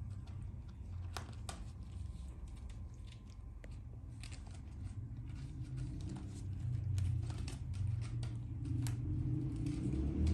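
Low, steady purring from a mother cat that grows louder toward the end, with soft scattered rustles and crackles over it.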